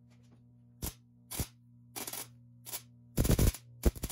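MIG welder arc crackling in short bursts as plug welds are laid into sheet steel, about seven bursts with the longest and loudest a little after three seconds in.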